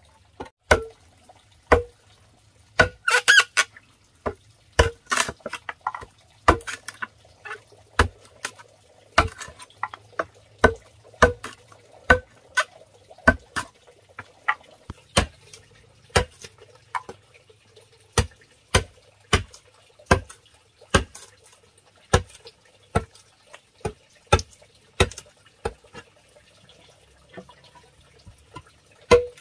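A machete chopping into a wooden plank, a sharp knock with a short ring about once a second, cutting notches into the timber. A quicker run of chops comes about three seconds in.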